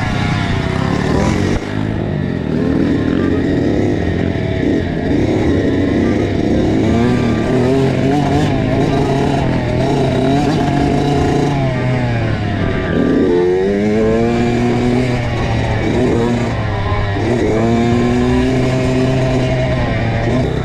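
Kawasaki KX85 two-stroke dirt bike engine revving hard and easing off as it is ridden, its pitch climbing and dropping again and again, with clear rising sweeps about two-thirds of the way through and again near the end.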